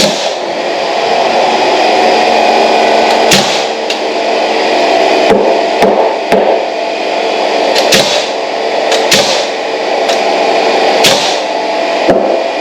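Sharp knocks, about eight of them at uneven intervals, over a steady hum of several held tones.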